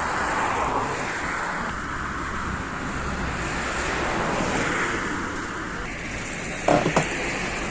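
Road traffic noise, with vehicles passing by in slow swells. Two sharp knocks come close together near the end.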